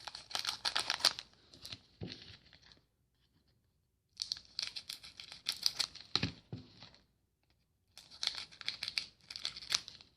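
Foil trading-card pack wrapper being torn open and crinkled, in three bouts of crackling with short pauses between them.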